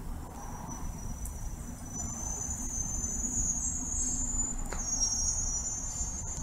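Crickets trilling at night: several thin, very high steady trills overlap, one starting just after the opening and others joining partway through, over a low background rumble.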